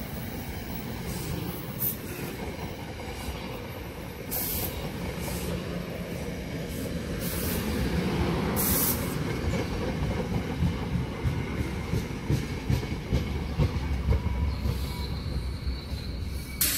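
NJ Transit bilevel commuter cars rolling past close by: a steady rumble of wheels on rail that grows louder after the middle, with rapid clicks as the wheels cross rail joints. Two brief hisses are heard, about four and eight seconds in.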